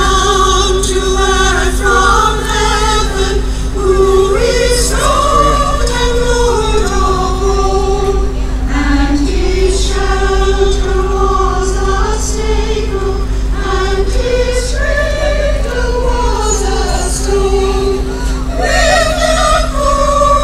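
A women's choir singing a Christmas carol in several parts, sustained notes moving in pitch without a break, over a steady low hum.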